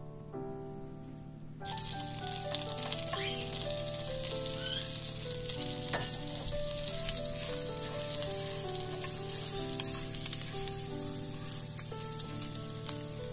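Minced garlic sizzling in hot fat in a frying pan, cutting in suddenly about two seconds in, with a spatula stirring it. Soft piano music plays underneath throughout.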